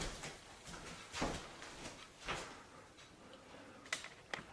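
Soft handling noises: a light knock, two brushing rustles, then a few small sharp clicks near the end.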